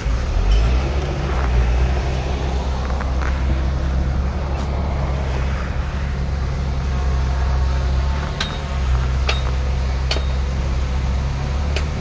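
Heavy diesel engine of earthmoving machinery running steadily with a deep drone, with a few short sharp knocks near the end.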